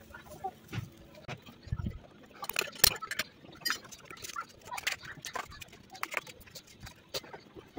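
Small paintbrush sweeping loose sand off a freshly cast metal piece, a run of quick, irregular scratchy strokes and taps from about two and a half seconds in, after a few soft thumps.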